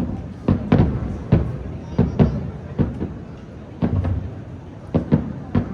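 Aerial firework shells bursting: an irregular run of about ten sharp booms, some in quick pairs, each with a short ringing tail.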